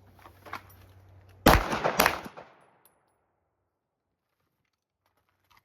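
Two 9mm pistol shots from a Glock 19X fired in quick succession, about half a second apart, on a quick draw, each with a short fading echo. A few faint clicks come just before the first shot.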